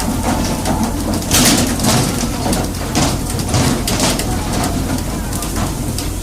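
Water splashing and spraying, with irregular knocks throughout and a steady low hum underneath.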